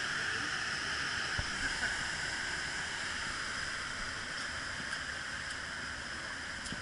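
Steady rushing of churning water in a river rapids ride channel around the raft, easing off slightly in loudness, with a few faint clicks.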